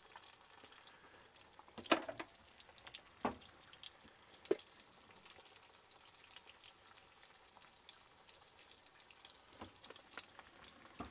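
Eggs frying in a nonstick skillet on a gas stove: a faint, steady sizzle with fine crackling, and a few sharper clicks about two, three and four and a half seconds in.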